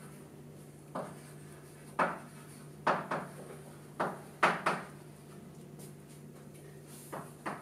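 Chalk knocking and scratching on a blackboard as a word is written, a string of sharp taps about once a second, some in quick pairs. A steady low hum runs underneath.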